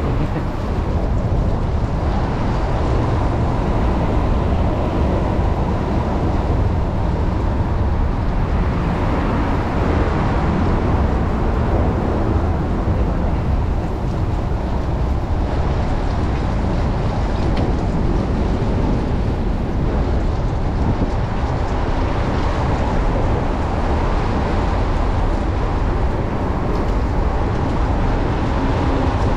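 Steady wind rush on the microphone of a riding cyclist, mixed with road and tyre noise on wet city streets and a faint steady hum.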